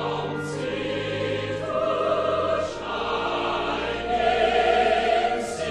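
Choral music: a choir singing slow, long held notes.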